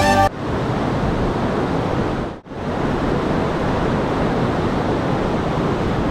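Steady rush of whitewater rapids, with a brief break about two seconds in; background music cuts off right at the start.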